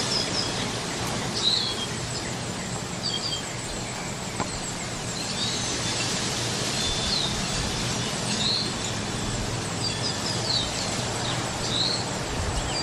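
Small birds chirping, short high calls repeated about once a second, over a steady rush of wind.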